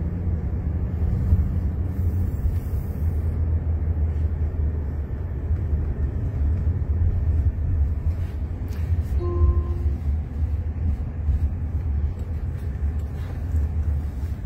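Steady low road and tyre rumble heard inside the cabin of a moving Jaguar I-PACE electric robotaxi, with no engine note. A short faint tone sounds about nine seconds in.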